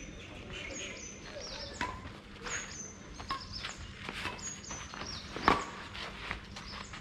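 Badminton rally: sharp racket strikes on a shuttlecock, several over a few seconds, the loudest, a smash, about five and a half seconds in. Birds call in the background with short falling high chirps.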